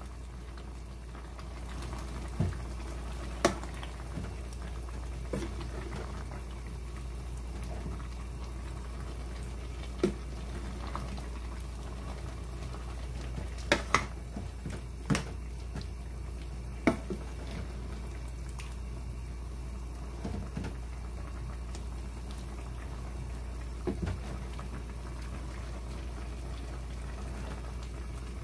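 Spicy red chicken stew bubbling in a metal pot, with a plastic ladle stirring it and knocking sharply against the pot now and then. A steady low hum runs underneath.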